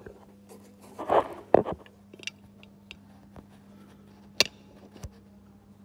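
Handling noise on a phone's microphone as it is picked up and covered: rubbing and bumps about one to two seconds in, then a sharp click a little past four seconds, over a steady low electrical hum.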